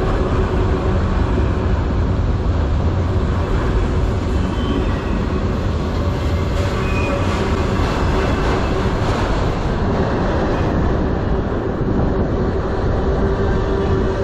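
Freight train autorack cars rolling past at close range: a steady, loud rumble and rattle of steel wheels on the rails. There are a couple of brief high squeals partway through.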